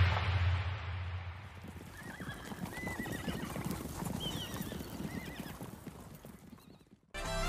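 Faint horse whinnies with clopping hooves, heard as the music fades out. Just before the end a loud electronic music sting starts abruptly.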